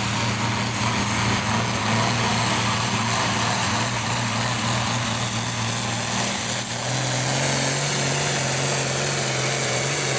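John Deere 4440 tractor's turbocharged six-cylinder diesel running hard under full load as it drags a weight-transfer pulling sled. A high whine climbs about two seconds in and holds.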